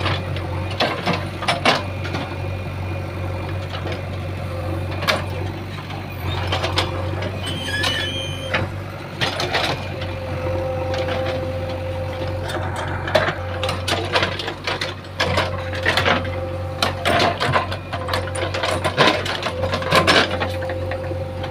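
JCB 3DX backhoe loader's diesel engine running steadily under work, with a steady higher tone over it and frequent short knocks and clanks from the machine working soil.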